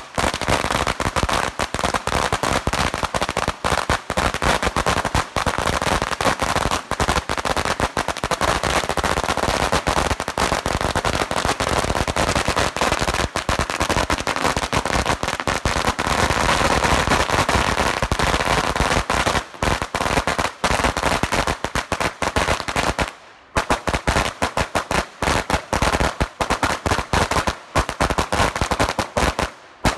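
A long run of firecrackers laid on the ground, going off in a rapid, continuous crackle of bangs. Brief breaks come about 23 seconds in and just before the end.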